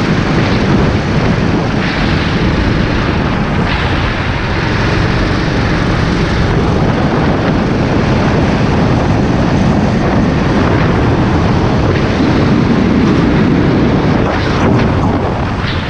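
Go-kart engine running at racing speed, heard from an onboard camera, with heavy wind buffeting on the microphone. The sound stays loud and steady throughout.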